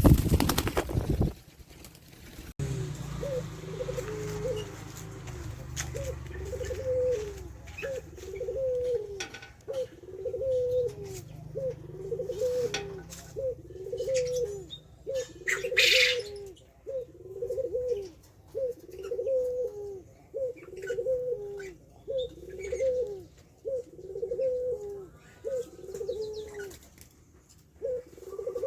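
Ringneck dove (burung puter) cooing over and over, a steady run of low coos about once a second. A loud short rustle comes at the start, and a brief flutter about halfway through.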